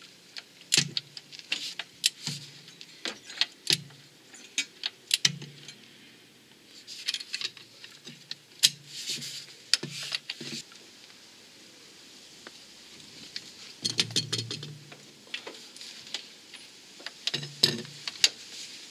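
Socket wrench and bar clinking and rattling against metal as they are fitted to and worked on the crankshaft pulley bolt of a Peugeot 206 HDi diesel: irregular clicks and knocks, about two a second for the first ten seconds, then a pause and two short clusters near the end.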